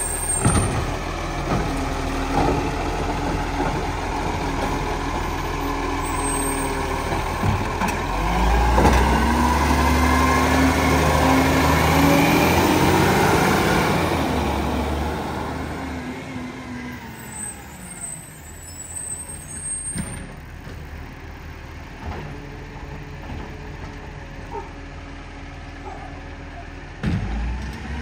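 Iveco side-loader garbage truck's diesel engine running. About eight seconds in it rises in pitch and grows loud as the truck works past close by, then it fades away over the second half as the truck moves off down the street.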